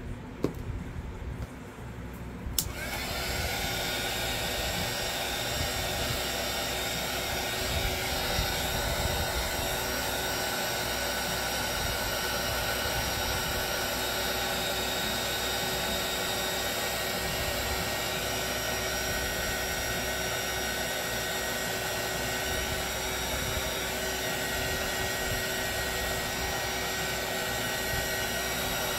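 Handheld craft heat gun starting up about two and a half seconds in, then running steadily with a rush of air and a constant thin whine as it blows hot air over wet resin.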